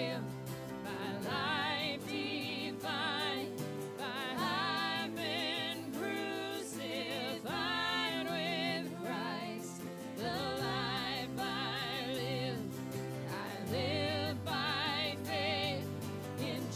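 A live worship band: a woman sings the lead line, holding notes with vibrato, over strummed acoustic guitar, electric guitar and a drum kit.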